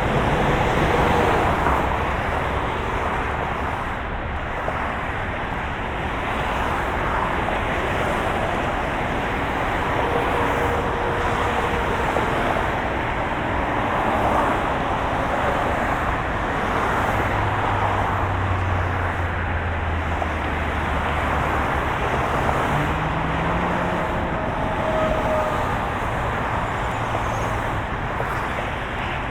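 Road traffic: a steady wash of passing vehicles, with a deeper engine hum for a few seconds past the middle.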